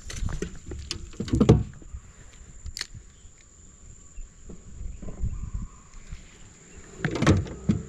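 Knocks and clatter of fishing gear being handled in a small boat: a spinning rod and reel bumping and clicking, with two louder thumps about a second and a half in and near the end. A thin steady high tone runs underneath.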